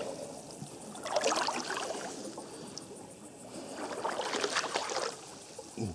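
A person wading waist-deep through water, the body pushing through it in two long sloshing swishes, the first about a second in and the second about four seconds in.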